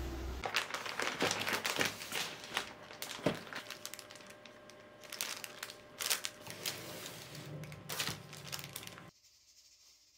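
Clear plastic wrapping and paper card crinkling and rustling as they are handled, in irregular crackles. The sound stops abruptly about a second before the end.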